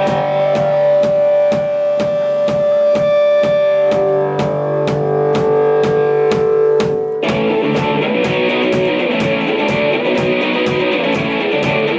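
Live rock band playing: held electric guitar notes over a steady drum beat, with fuller strummed guitar coming in about seven seconds in.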